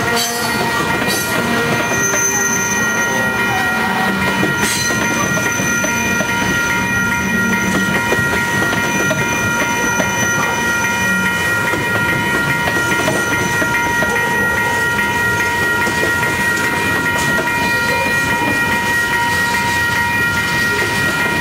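Freight train cars rolling past, wheels clacking over the rail joints, with a steady high-pitched ringing over the rumble. There are two sharp clanks in the first five seconds.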